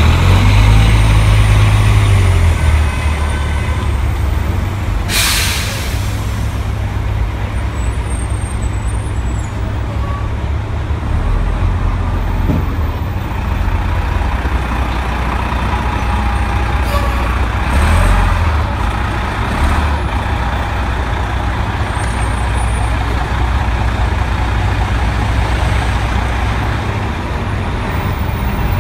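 MTA city bus engine running with a heavy low rumble as the bus pulls past close by, with a short sharp air-brake hiss about five seconds in.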